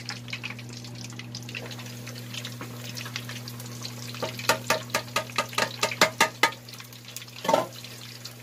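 Pork hock deep-frying in a pan of hot oil: steady fine crackling and bubbling, then a run of loud, sharp pops of spattering oil, about four or five a second, from about four to six and a half seconds in, as the lid comes off the pan.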